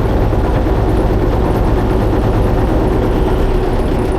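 Boat engine running steadily, a low, even drone with a steady hum over it.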